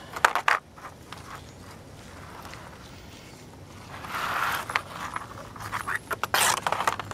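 Handling noise as gloved hands grease a steel speedometer inner cable with a tube of white lithium grease over a cardboard sheet: a few sharp clicks just after the start, a longer scrape about four seconds in, and a cluster of clicks and scrapes near the end.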